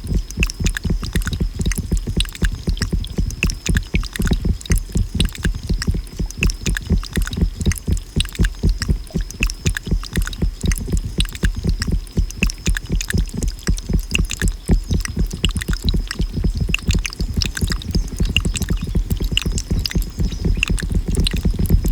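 Water soundscape of field recording and musique concrète: a rapid, continuous low throbbing of many pulses a second, with fine crackling clicks and a thin steady high tone over it.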